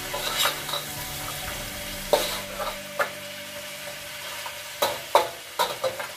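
Blue crabs sizzling in a steel wok while a metal spatula stirs them, the spatula clanking and scraping against the wok every second or so, several clanks close together near the end.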